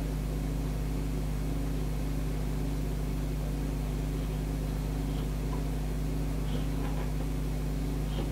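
Steady low electrical hum made of several low tones, unchanging throughout, with a few faint clicks about five, six and a half and eight seconds in.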